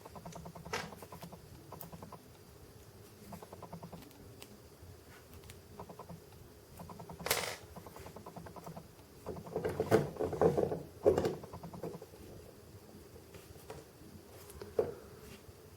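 Scattered small clicks and taps of hands handling a diecast model crane and its tiny metal pins and parts, with a sharp click about seven seconds in and a cluster of louder knocks around ten to eleven seconds.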